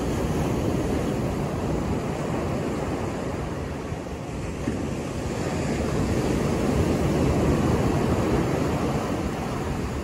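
Ocean surf breaking and washing up a sandy beach: a steady rushing that swells louder in the second half.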